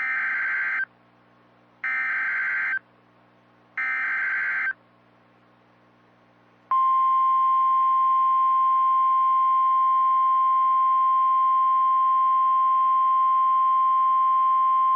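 NOAA Weather Radio alert through a weather radio: three short SAME (Specific Area Message Encoding) data bursts about two seconds apart, then, about seven seconds in, the steady 1050 Hz warning alarm tone, which holds. Together they signal the start of a tornado warning broadcast.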